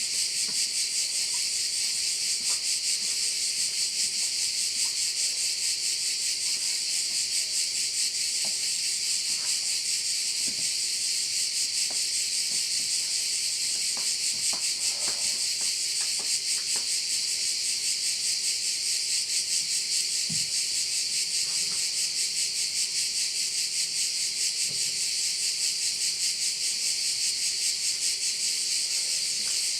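Chorus of crickets: a dense, continuous high-pitched shrill with a fast pulsing texture, holding steady, over a faint steady low hum.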